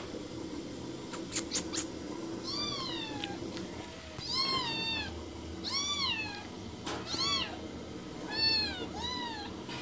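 Cats meowing, about six separate meows, each rising then falling in pitch, with short gaps between them.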